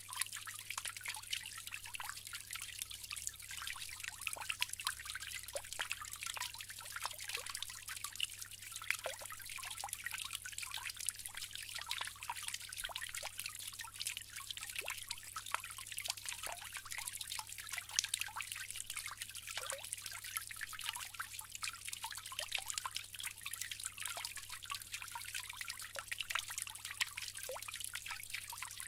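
Bamboo water fountain trickling steadily, the water pattering in many small, irregular drips and splashes.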